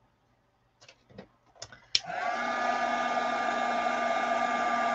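Craft heat tool clicked on about two seconds in, its fan spinning up with a brief rising whine and then running steadily, blowing hot air to dry sprayed watercolor paper. A few light handling clicks come before it.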